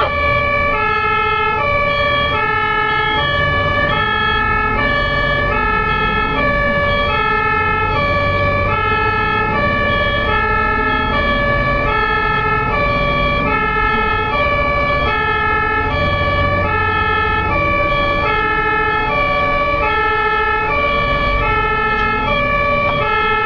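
German ambulance's two-tone siren (Martinshorn) sounding continuously, alternating evenly between a high and a low note, over a low rumble of vehicle engines.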